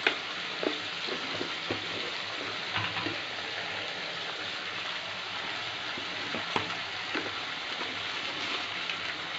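Oil sizzling steadily in a kadai of frying potatoes and masala paste over a gas flame, with a few faint clicks and pops scattered through it.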